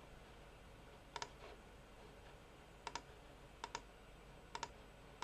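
Quiet room with soft clicking at a computer: four quick double clicks spaced a second or so apart, and a last click near the end.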